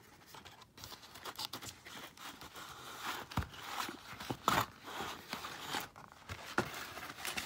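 Cardboard box of firework fountains being handled and pried at one-handed: irregular rustling, scraping and small knocks of cardboard and the paper-wrapped tubes inside.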